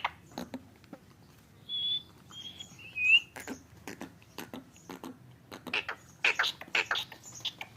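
Indian ringneck parakeet making soft clicking and chattering sounds, with a few short whistled chirps about two to three seconds in and a quicker run of clicks and chirps near the end.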